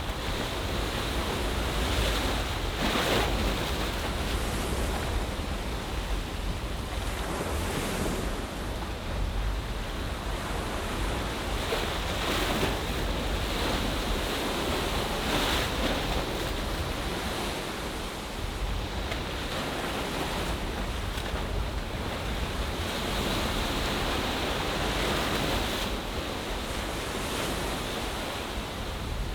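Ocean waves washing onto the shore of a bay, a continuous surf that swells every few seconds, with wind rumbling on the microphone.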